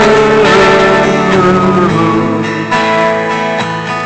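Live acoustic guitar strumming under a long sliding sung "ooo" that imitates the wind of a hurricane. The tone rises, holds, dips about two seconds in and swoops up again near the end.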